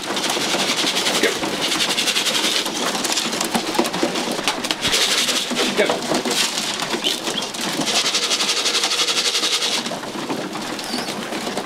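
Racing pigeons cooing in their loft, with four rustling hissy bursts of about one to two and a half seconds each.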